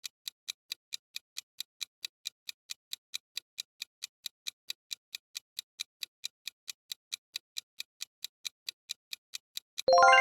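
Clock-tick sound effect of a quiz countdown timer, ticking evenly about four times a second. A bright ringing chime comes in near the end, the kind that marks time up or an answer reveal.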